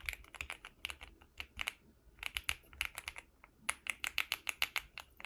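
Typing on an Akko MonsGeek M1 V5 full-aluminium mechanical keyboard: quick runs of crisp key clicks, several strokes a second, broken by short pauses.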